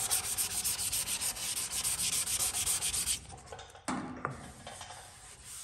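Wet sandpaper held in the fingertips rubbing over primer on a truck cab's sheet metal, in quick, even back-and-forth strokes. The sanding stops about three seconds in, and a couple of light knocks follow.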